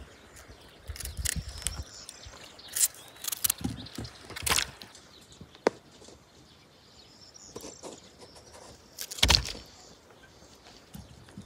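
Scattered clicks and knocks over a faint hiss, with a cluster early on, a sharp click near the middle and the loudest knock about nine seconds in.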